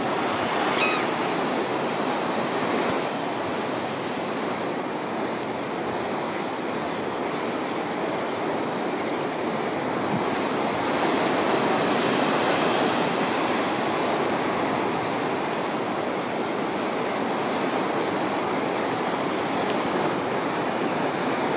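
Heavy ocean surf surging and churning among layered limestone rock stacks: a steady rushing wash of water that swells a little past the middle. A brief high whistle-like note sounds about a second in.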